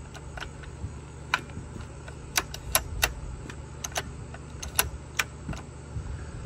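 About a dozen sharp, irregular clicks and taps as a hand and a thin metal tool knock against the plastic and metal housing of a Homelite chainsaw that is not running, over a steady low background rumble.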